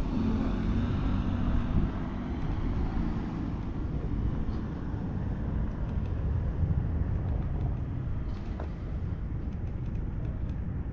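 Steady low outdoor rumble of road traffic and wind on the microphone, with a few faint light clicks near the end.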